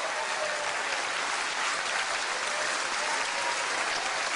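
Theatre audience applauding at the end of a song: dense, steady clapping.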